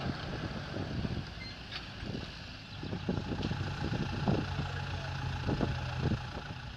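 John Deere tractor's diesel engine idling steadily, with scattered knocks of wooden pallets being handled, more of them in the second half.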